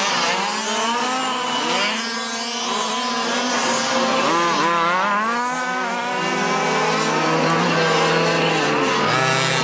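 Several fifth-scale petrol RC dirt-mod race cars running together, their small two-stroke engines buzzing in overlapping tones that rise and fall as they rev and back off around the oval.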